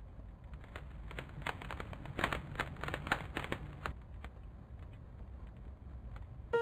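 Fire crackling: a quiet run of sharp pops and crackles over a low steady rumble, busiest in the middle and thinning out after about four seconds.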